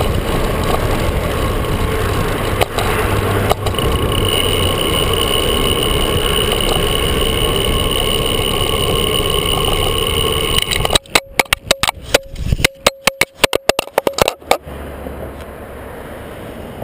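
Bicycle riding noise picked up by a handlebar-mounted GoPro: tyre and wind noise with a steady whine, jolted twice about three seconds in by bumps in the pavement. About eleven seconds in, the shaken mount breaks and the camera clatters and bounces along the pavement in a rapid string of knocks for about three and a half seconds, then lies still with only a low rumble.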